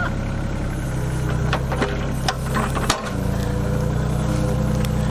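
An engine idling steadily with a low, even hum. A few sharp clicks land between about one and a half and three seconds in, and the hum breaks off for a moment near three seconds before carrying on.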